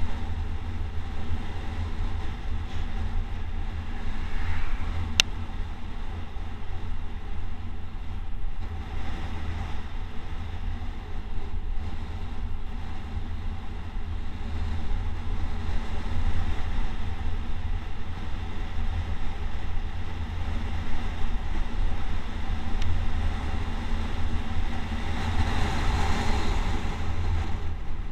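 Wind buffeting the microphone of a camera moving fast downhill, a steady low rumble, with one sharp click about five seconds in.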